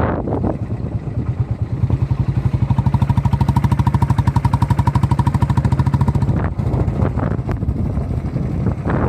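An engine running with a rapid, even pulsing beat that swells up about two seconds in and drops away about six seconds in, over a rushing background noise.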